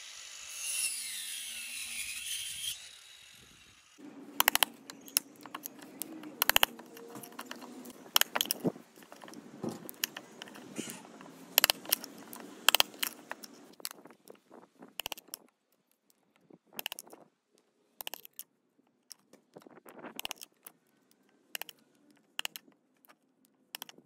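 Angle grinder whining and winding down, falling in pitch and stopping about three seconds in. Then a hammer knocks a chisel into a wooden board to chop out small squares: sharp strikes at irregular intervals that thin out to occasional taps.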